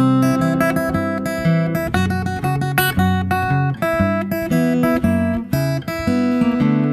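Background music: acoustic guitar plucked and strummed in a steady rhythm.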